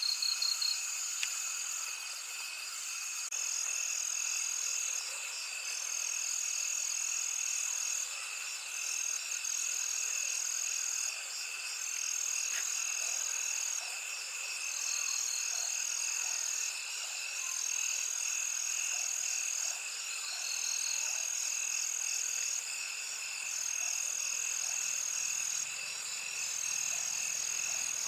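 Chorus of calling night animals: long high trills repeating every second or two over a steady lower drone.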